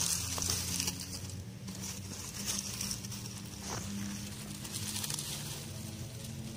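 Bidara seedlings being pulled up by hand from soil and dry leaf litter: rustling and crackling of leaves and stems, with a couple of small snaps. A faint steady low hum sits underneath.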